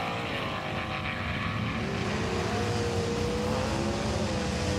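Racing-car engine sound effect: a steady low rumble with a slowly wavering engine tone, dubbed over die-cast cars rolling down a track.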